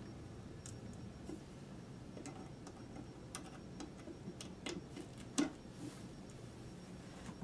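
Screwdriver driving a screw by hand into a cigar-box diddley bow, giving scattered, irregular clicks and creaks, the loudest a sharp click a little past halfway.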